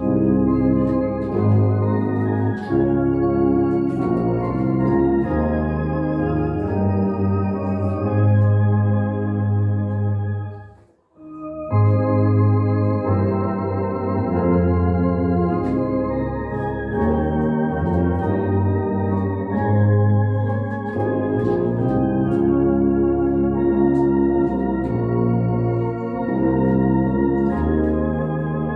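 Tuba and bass saxophone playing a slow hymn together in long held chords, the tuba carrying a strong bass line. The music stops for a breath about 11 seconds in, then the hymn goes on.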